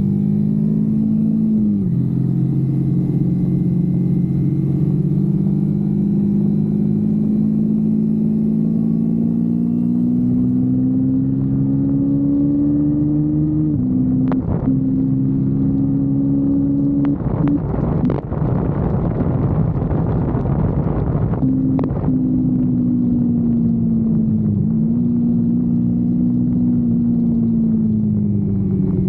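Kawasaki Versys-X 250's parallel-twin engine from onboard, dropping in pitch with a gear change about two seconds in, then pulling up steadily through the revs before easing off and falling, with another shift near the end. Around the middle there are a few seconds of loud rushing noise and some sharp knocks over the engine.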